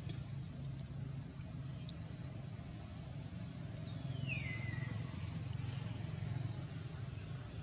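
Steady low background rumble, with a single high whistle about four seconds in that slides downward in pitch over about a second.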